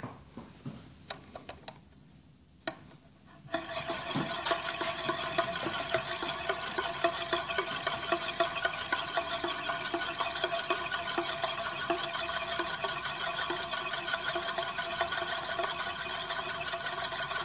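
Euler's Disk, a heavy mirror-finished metal disk, spinning and rolling on its concave mirror base. A few faint clicks, then about three and a half seconds in a steady, fast whirring rattle of the disk's edge rolling round on the mirror.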